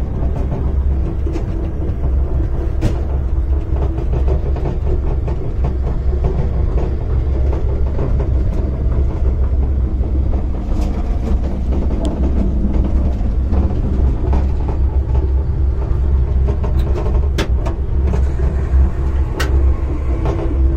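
Passenger train running, heard from inside its onboard toilet cubicle: a steady low rumble with a constant hum and scattered light clicks and rattles.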